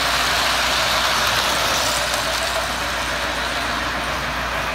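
Model trains running on metal track close by: a steady rolling noise of wheels on rail and train motors.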